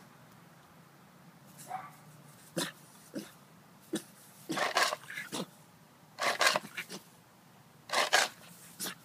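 Boston terrier barking in short bursts, several in quick clusters with short pauses between, the loudest in the middle and near the end.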